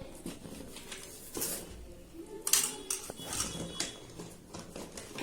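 Small plastic toys being handled, knocking and clattering against each other in scattered clicks, the sharpest about halfway through.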